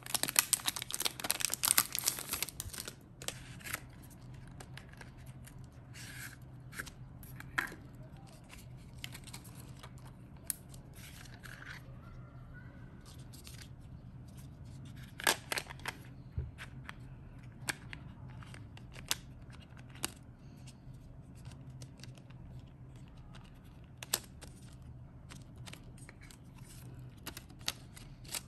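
Plastic wrapper crinkling and tearing as it is pulled off a small paper box for the first few seconds, then scattered light clicks and taps as the box and the small coloured blocks inside are handled, over a faint low hum.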